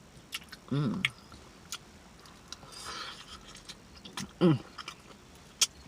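Close-miked mouth smacking and chewing: a run of short, sharp clicks from the lips and mouth. Two brief voiced sounds come about a second in and again near the end.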